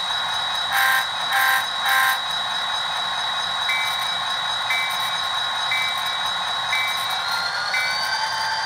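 Bachmann HO-scale SD40-2's DCC sound decoder playing through its small onboard speaker. Over a steady high-pitched idle whine come three short horn blasts, the signal for backing up, then the bell striking about once a second. Near the end a rising whine sounds as the engine notches up and the model starts to move.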